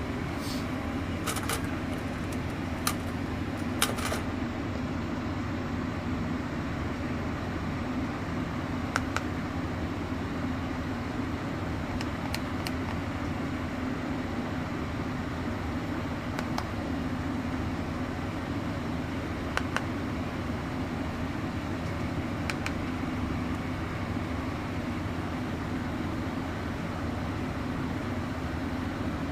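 Toy bullet train's small electric motor whirring steadily, with a few sharp plastic clicks now and then.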